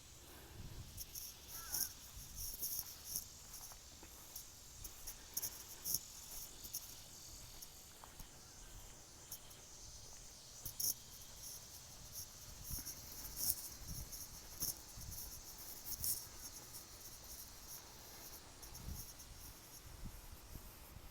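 Insects chirring in the garden in irregular high-pitched pulses, with occasional low thumps.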